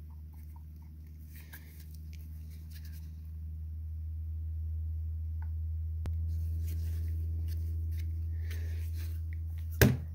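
Faint rustling and small clicks of nitrile-gloved hands handling a brass air-brake valve body (a Haldex tractor protection valve), over a steady low hum. A sharp click about six seconds in, and a louder knock near the end as the valve is set down on the metal bench.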